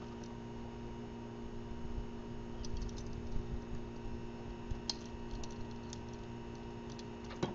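Scattered sharp clicks of a ratcheting PVC pipe cutter being opened and set onto a half-inch PVC pipe, a few around three seconds in and more in the last few seconds, over a steady low hum.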